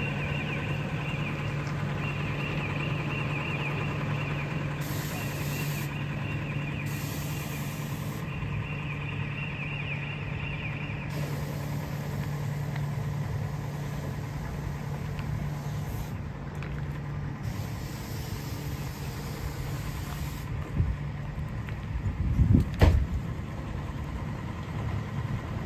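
A machine motor running steadily, an even low hum that fades out about twenty seconds in, followed by a few knocks.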